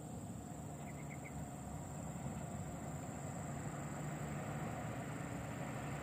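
Distant coal-hauling truck's diesel engine running as it drives toward the listener on a dirt haul road, a low hum growing slowly louder.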